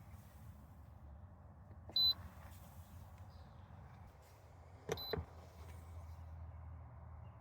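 Two short, high electronic beeps, one about two seconds in and one about five seconds in, the second with a sharp click, over a steady low hum.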